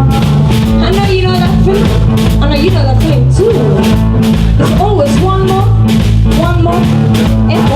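Live blues-rock band playing an up-tempo boogie: a steady drum beat, a walking bass line and gliding lead lines over the top.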